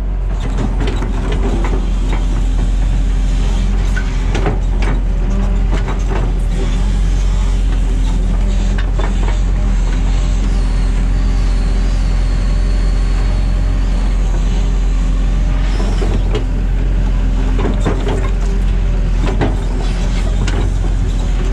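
Excavator's diesel engine running steadily under load while its bucket scrapes, pushes and drops gravel, with scattered knocks and crunches of stone against steel.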